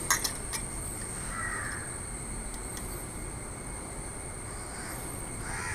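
Crows cawing twice, one call about a second and a half in and another near the end, over a steady high-pitched insect drone. A few light clicks just at the start.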